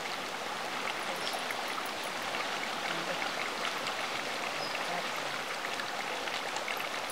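Chicken curry simmering in a large steel kadai over a wood fire. It makes a steady sizzling, bubbling hiss with scattered small pops.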